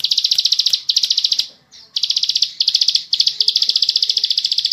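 Ciblek sawah singing long, fast, tightly packed trills of rapid clicking notes (ngebren), with one brief break about one and a half seconds in.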